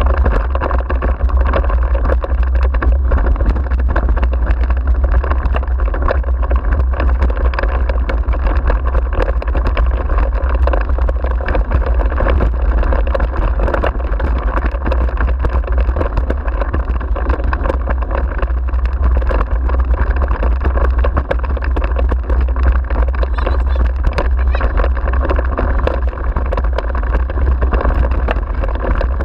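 Wind buffeting the microphone over the steady rattle and rumble of a dog-pulled rig's wheels rolling over a rough dirt forest track, loud and unbroken throughout.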